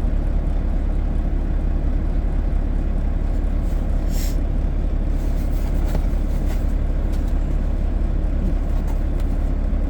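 Steady low hum of an idling vehicle engine, with a few faint rustles and taps of a cardboard tool box being handled around the middle.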